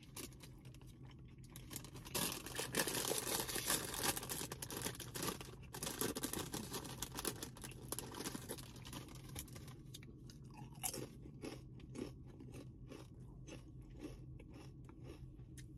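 Plastic chip bag crinkling and rustling as it is handled for several seconds, then close-up chewing with soft crunches, about two chews a second.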